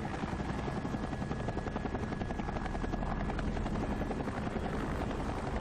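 Helicopter running steadily, its rotor chopping in a fast, even rhythm.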